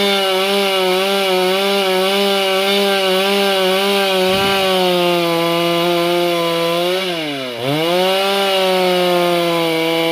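Two-stroke chainsaw running at high revs while cutting wood, its pitch wavering under the load. About seven seconds in, the engine speed drops sharply for a moment, then climbs back to full revs.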